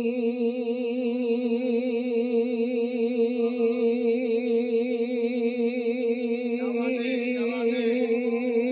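A male qawwali singer holds one long, unbroken note with a slight wavering vibrato, a sustained display of breath. Other voices come in faintly from about two-thirds of the way in.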